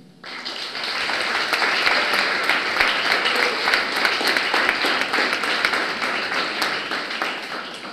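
Audience applauding: dense clapping that starts at once, holds steady and dies away near the end.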